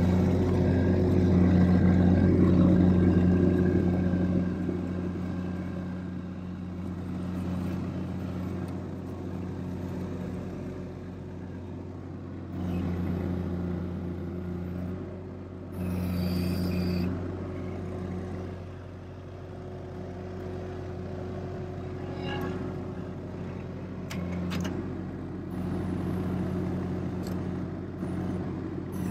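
Avant 528 compact articulated loader's diesel engine running steadily, swelling louder several times for a second or two as the loader is driven and its hydraulics lift a pallet of beehives.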